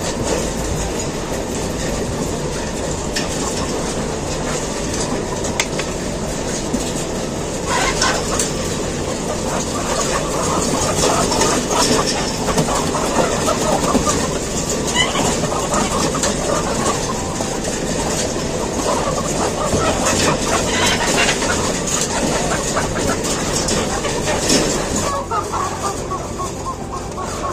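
Poultry-house machinery running with a steady rattling clatter, with many hens clucking over it.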